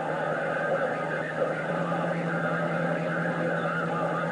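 AM CB radio receiver hissing with band noise between transmissions, with faint, garbled voices of distant skip stations under it and a steady low hum.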